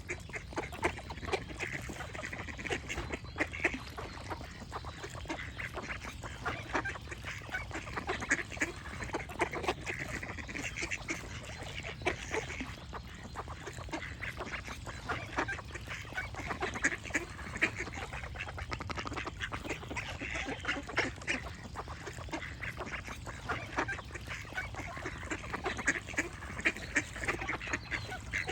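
Ducks quacking continuously: many short, overlapping calls in an irregular stream, over a steady low background noise.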